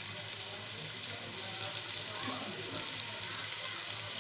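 Sliced onions and garlic sizzling in hot oil in a pot: a steady hiss with many small crackles.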